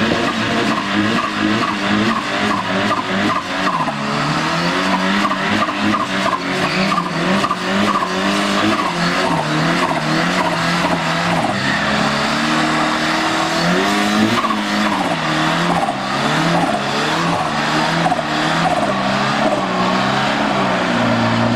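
Ford Sierra Sapphire Cosworth doing a burnout: the engine is held at high revs that waver up and down while the spinning rear tyres squeal and smoke against the tarmac.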